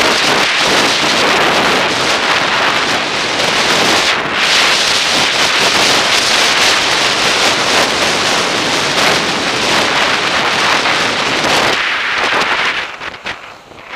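Skis sliding and scraping over a groomed snow piste at speed, mixed with wind buffeting the camera microphone; the noise drops sharply near the end.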